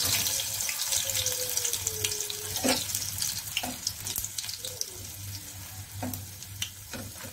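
Besan-battered night jasmine leaf pakoras sizzling in hot oil in a nonstick wok. The sizzle fades gradually, and a metal slotted spatula clicks against the pan several times as the fritters are turned.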